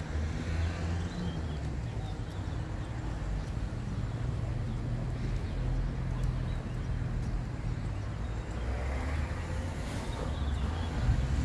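Outdoor street ambience: a steady low rumble of traffic with faint voices of passers-by.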